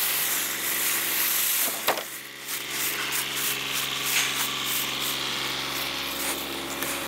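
Kioti compact tractor's diesel engine idling steadily, with a sharp knock about two seconds in.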